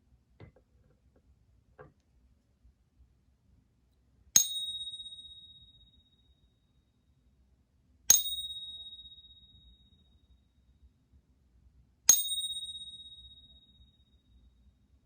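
Silver bullion coin held in a Pocket Pinger and tapped three times, about four seconds apart: a ping test for alloy identification. Each tap gives a sharp ping that rings on at one clear high pitch with fainter higher overtones, dying away over about two seconds. Two faint handling clicks come before the first tap.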